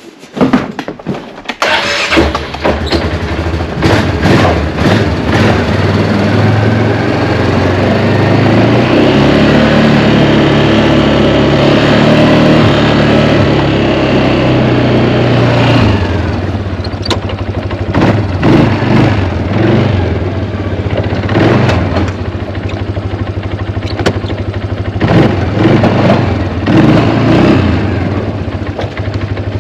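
A snowplow vehicle's engine starts after a few clicks and runs at raised revs that climb in pitch, then drops to a lower idle about halfway through, with repeated short rises and knocks after that.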